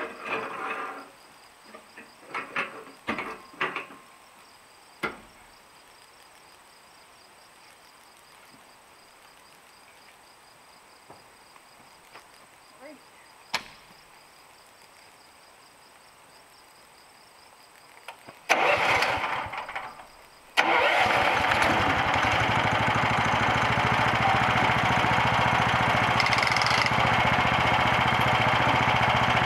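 A few short clunks in the first seconds, then the homemade bandsaw mill's engine is cranked for about two seconds, catches, and settles into steady running.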